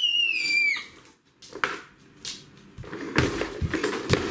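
A child's brief high-pitched squeal, falling slightly in pitch, then after a pause a run of clattering and sharp knocks.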